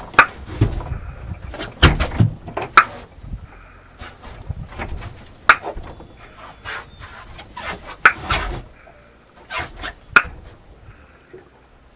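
A ball being hit back and forth in a game of tennis, sharp knocks every one to three seconds, with scuffing and footwork between the hits.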